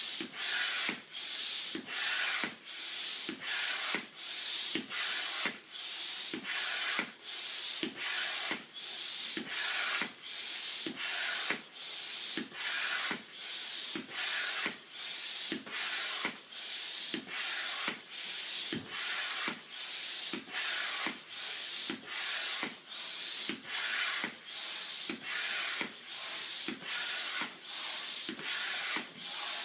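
Upright hand air pump being worked steadily to inflate a large balloon: an even rhythm of hissing whooshes of air, about three strokes every two seconds.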